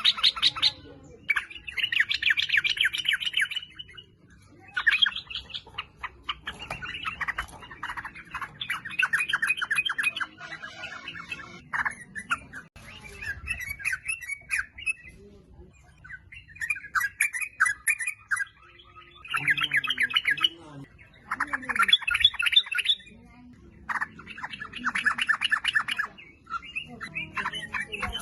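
Yellow-vented bulbul (trucukan) singing: loud, rapid chattering phrases of bubbling notes, each lasting a second or two, repeated with short pauses.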